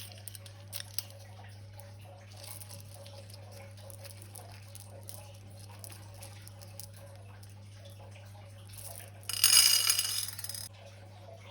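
Slime being handled and squeezed: a few small clicks at the start, then faint soft squishing over a steady low hum. Near the end comes a loud, hissing squelch lasting about a second and a half.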